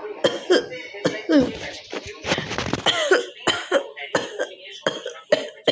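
A woman coughing over and over in short, forced coughs with voice in them, about two a second. Between about two and three seconds in, the coughs give way to one longer harsh rasp.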